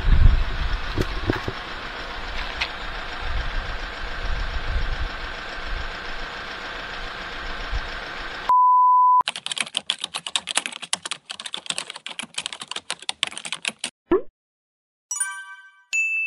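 Uneven low outdoor rumble for about eight seconds, then a short steady beep. It is followed by about five seconds of rapid keyboard-typing clicks, an editing sound effect for on-screen text. Near the end come a brief swish and a few chime-like tones ending in a held note.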